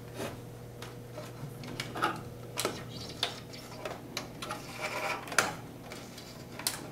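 Irregular light clicks, taps and rubbing of clear plastic tubing being fed through an opening in an Epson R2000 printer's plastic housing, a sharper tap about five seconds in.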